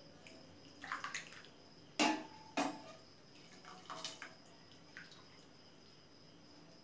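Soup being ladled from a steel pot into a ceramic bowl: liquid pouring and dripping, with the ladle knocking against the pot and bowl. Two sharper clacks come about two seconds in, and softer knocks follow.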